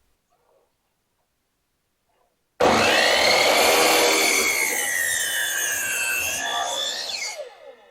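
Husqvarna chainsaw cutting a flat edge into a log. It starts abruptly about two and a half seconds in, the engine's pitch wavers and sags under load, then falls away as the cut ends and the throttle is released near the end.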